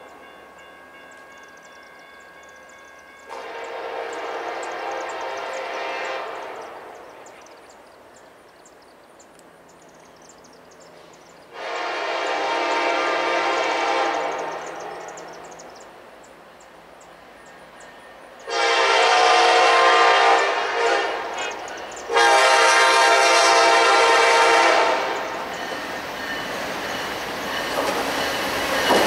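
Horn of a Norfolk Southern SD70ACe diesel locomotive sounding four blasts as the train approaches, each louder than the one before, in the pattern of a grade-crossing signal. The rumble of the oncoming train builds after the last blast.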